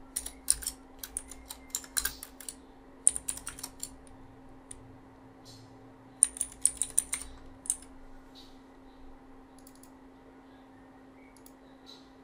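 Computer keyboard typing in quick bursts of keystrokes with pauses between, thinning to a few scattered clicks in the second half, over a faint steady hum.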